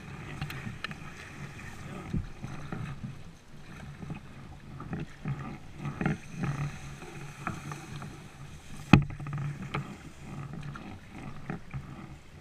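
Kayak being paddled through reeds: irregular paddle splashes and water lapping, with reed stems brushing and scraping along the hull. One sharp knock about nine seconds in.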